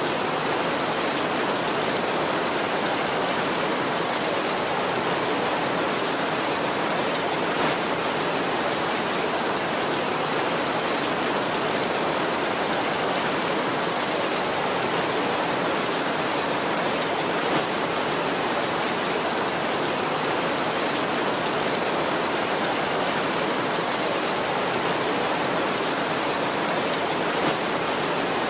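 Heavy, steady rain, an even hiss with no thunder, and a few single louder drop hits standing out now and then.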